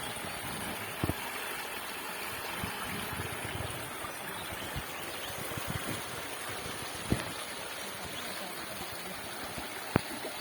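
Stream water running steadily over rocks in low, gentle cascades, with a few brief knocks now and then.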